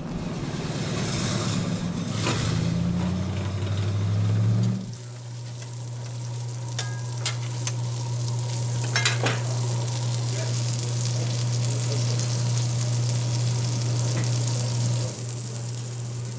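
Sausage patties sizzling on a flat griddle, a steady fizzing hiss with a few light clicks. Under it a steady low hum, and in the first five seconds a louder low rumble that shifts in pitch and cuts off abruptly.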